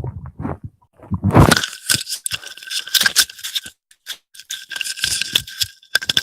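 A hungry stomach gurgling in low pulses, with a deeper rumble about a second in. Then scratchy rustling and scraping noises with a thin steady whine underneath.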